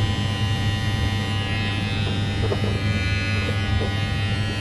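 WMARK NG-222 cordless hair clipper running with a steady buzz, left on to check whether its blade heats up.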